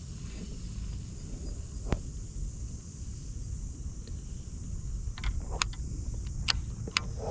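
Wind rumbling on the microphone over a faint, steady high hiss, with a single sharp click about two seconds in and a handful of sharp clicks in the last two seconds.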